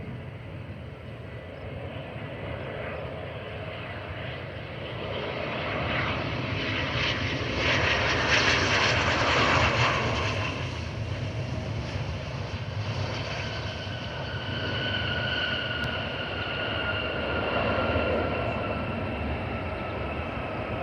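Gulfstream business jet's turbofan engines flying past on approach to land. A rushing roar builds to its loudest about eight to ten seconds in, then turbine whines slowly fall in pitch as the jet moves away.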